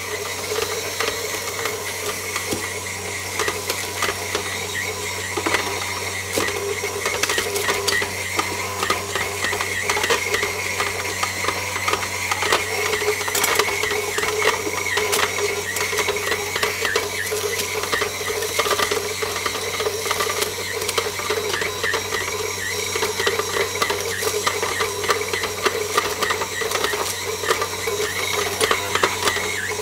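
KitchenAid Heavy Duty stand mixer running steadily, its motor and gearing whirring as the dough hook kneads a firm, dry brioche dough, with scattered light knocks throughout.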